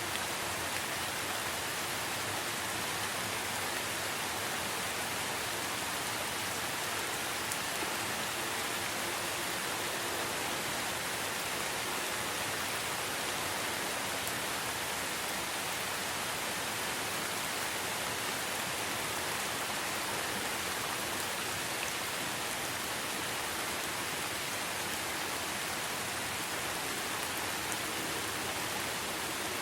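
Steady rain falling in a forest, an even hiss of many drops with no single drops or other events standing out.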